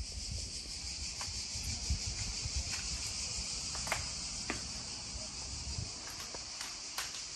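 Steady, high-pitched chirring of an insect chorus, with low footstep thuds through the first six seconds and a few sharp clicks.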